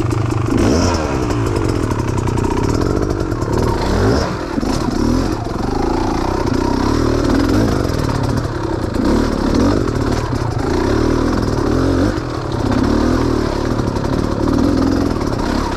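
Off-road vehicle's engine working through rough, muddy trail, its revs repeatedly rising and falling with the throttle.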